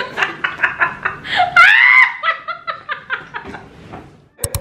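Two women laughing hard in quick pulsing bursts, with one loud high-pitched squeal of laughter about one and a half seconds in; the laughter fades out near the end, followed by a short sharp click.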